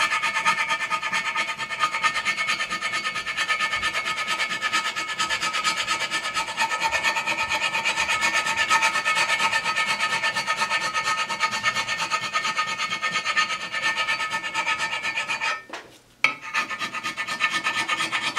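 Rapid back-and-forth hand scrubbing with an abrasive on the oil-soaked, rusty surface of a cast-iron drill press table, rubbing off the rust. The strokes pause briefly near the end, then start again.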